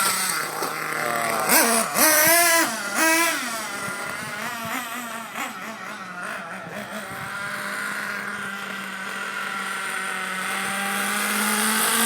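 Small gas engine of a remote-control car revving hard in several quick bursts over the first few seconds, then running steadily at high revs, its pitch slowly climbing near the end.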